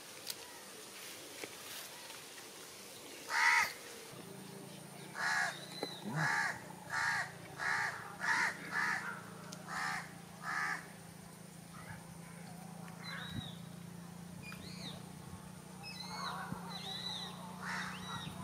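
A bird calling repeatedly: one loud call a few seconds in, then a run of about eight calls, roughly one and a half a second, with thinner high chirps from smaller birds near the end. A faint steady low hum runs underneath.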